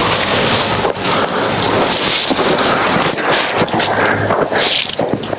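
Water rushing over a partly frozen waterfall, heard as a loud, steady rushing noise with small irregular rises and dips.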